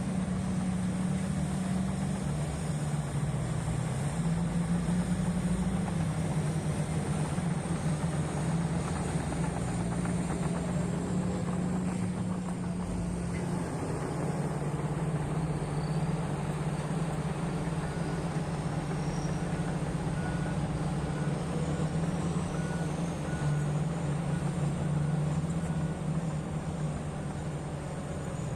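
Heavy earthmoving diesel engine running steadily under work, its pitch shifting up and down as it is worked. From about two-thirds in, a faint beep repeats about once a second.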